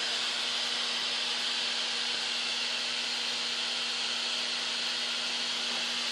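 Multi-jet brass stove burner running on a mix of HHO gas, hexane and compressed air: its jets and blue flames hiss steadily and evenly, with a steady low hum underneath.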